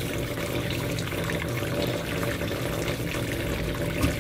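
Kitchen tap running steadily into a sink, with a low hum beneath.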